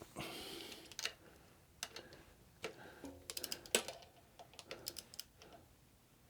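Click-type torque wrench tightening a bolt to about 8 Nm: scattered ratchet clicks, a quick run of clicks a little past the middle, then one sharper click.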